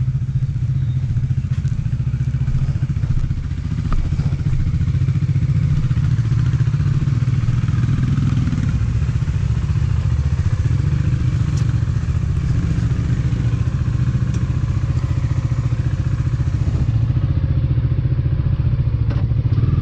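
Bajaj Dominar's single-cylinder engine idling steadily, warming up shortly after a cold start.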